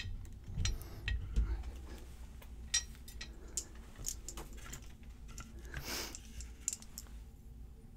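Small metal lock parts and tools being handled as a picked pin-tumbler lock is taken apart: scattered light clicks and taps, with a brief scrape about six seconds in.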